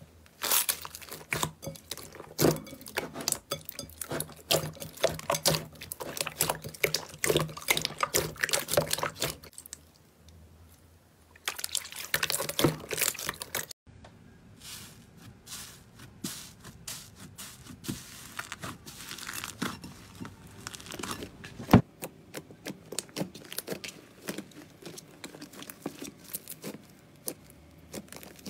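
Hands squishing and kneading slime, giving rapid wet clicks and pops, with a short lull about ten seconds in and a sharp snap a little past the middle.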